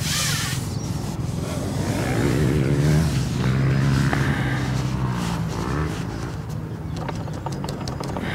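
Motorbike engines running and revving, the engine note rising about three seconds in and dropping again a couple of seconds later.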